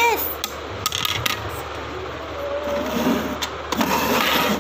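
Plastic toy pieces being handled and fitted together: scattered light clicks and scraping, with a louder rustling scrape near the end.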